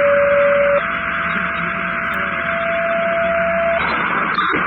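Two-tone sequential dispatch paging tones over a fire-department scanner radio, with steady radio hiss under them. A lower tone sounds for about a second, then a slightly higher tone is held for about three seconds. These tones alert the station's pagers to a new call.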